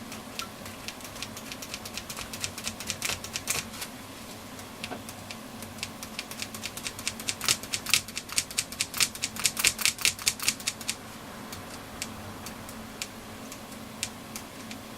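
A mono jack plug pushed in and out of a transistor radio's jack socket again and again, giving a run of sharp clicks that come thickest and loudest in the middle. The plug is wetted with DeoxIT contact cleaner to clean the socket's contacts.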